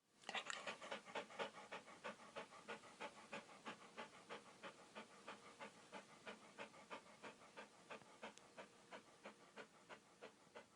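A dog panting rapidly and evenly, about four breaths a second, faint and slowly fading.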